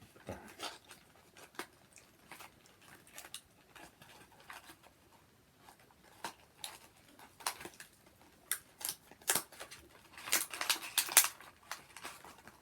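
Scattered small crinkles and clicks from handling a Terry's Chocolate Mint and its foil wrapping, sparse at first and thickest about nine to eleven seconds in.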